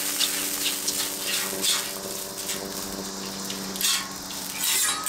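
Oil sizzling on a hot Blackstone flat-top griddle while a metal spatula spreads it across the steel, with short scraping strokes over a steady hiss and a faint steady hum underneath.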